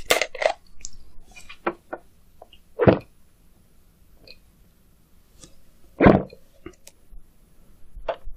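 Close-miked eating sounds of a person eating spicy meat gukbap with chopsticks: short clicks and mouth sounds, with two louder ones about three and six seconds in.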